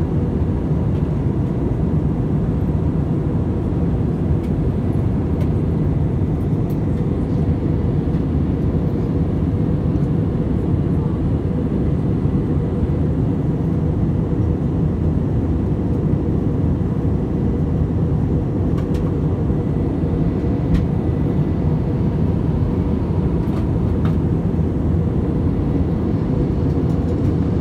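Steady, deep drone of a jet airliner in flight, engines and rushing air heard from inside the passenger cabin.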